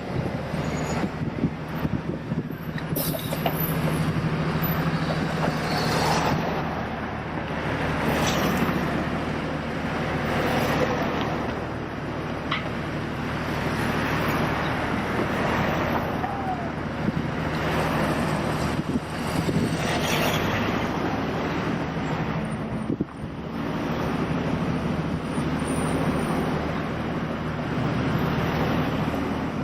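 Heavy engines running steadily under a continuous wash of traffic and machinery noise, with a few short sharp knocks.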